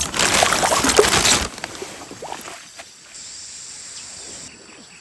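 A loud burst of splashing water for about a second and a half that stops abruptly, then quieter stream background with a high, steady insect buzz for about a second.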